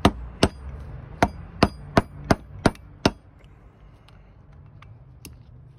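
Eight sharp metallic knocks over about three seconds, then they stop: a removed clutch master cylinder being struck to drive a stuck internal part out of it.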